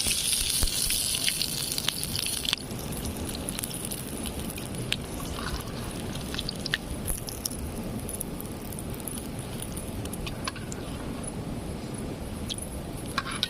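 Hot oil sizzling as batter-coated paneer deep-fries, cutting off abruptly a couple of seconds in. After that, a steady rush of flowing river water, with scattered small clicks and taps.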